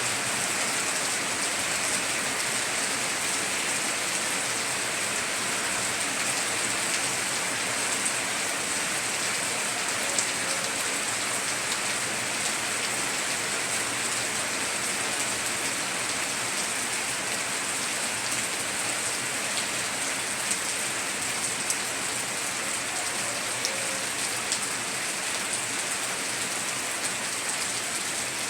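Heavy rain falling steadily, with scattered sharp drip ticks.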